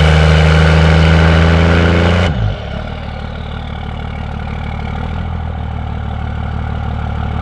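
Cummins 5.9 diesel truck engine through a 5-inch straight exhaust, held at raised revs for about two seconds, then dropping back to a steady idle.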